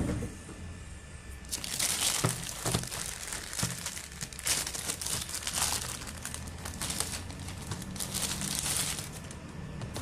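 Thin clear plastic packaging bag crinkling and rustling in irregular bursts as it is handled and pulled off, starting about a second and a half in and easing off near the end.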